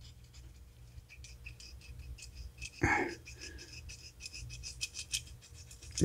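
Torch tip cleaner wire scraping back and forth through the small orifice of a brass carburetor idle jet, a faint, rapid scratching made while clearing the jet's dirty, too-small opening. One brief louder knock comes about three seconds in.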